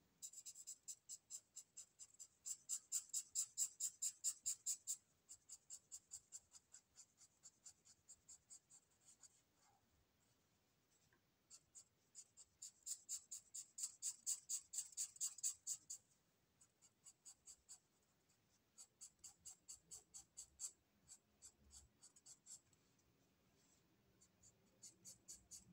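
Ink marker scribbling back and forth on paper to fill in colour, quick strokes about five or six a second in runs, with a couple of short pauses.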